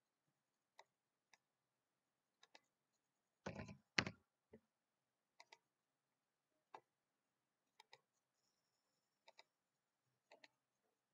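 Quiet, sparse computer mouse and keyboard clicks, several in quick pairs like double-clicks. A louder clatter of knocks comes about three and a half seconds in.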